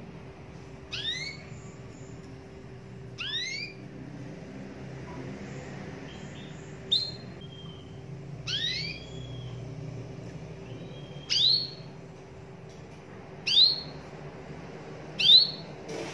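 Caged domestic canary giving a series of short sweeping call notes, about seven, each under half a second and a couple of seconds apart. A few short level whistles fall between them.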